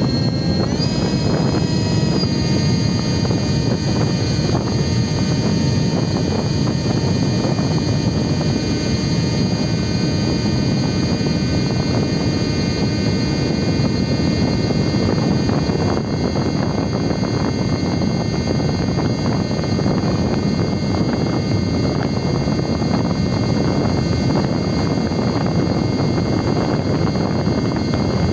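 Brushless electric motor and pusher propeller of a Mini Talon FPV plane whining steadily in flight, over heavy wind rush on the onboard camera's microphone. The whine rises in pitch about a second in, then holds.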